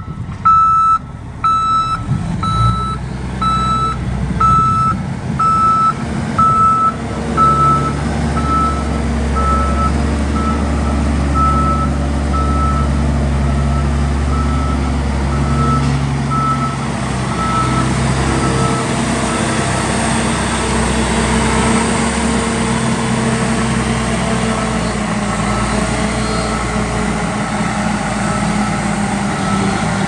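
2007 Caterpillar 735 articulated rock truck's diesel engine running as the truck manoeuvres, with its reversing alarm beeping a single steady tone about one and a half times a second. The beeps are loud at first and fade to faint about halfway through as the engine carries on.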